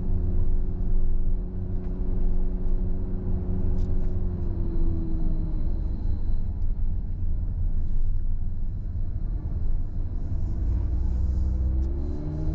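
Car engine and road rumble heard from inside the cabin while driving slowly. The engine note falls about five seconds in and climbs again near the end.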